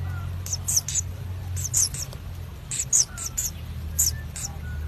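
Nestling birds in a burrow nest giving thin, very high squeaking chirps in quick groups of two or three, over a steady low hum.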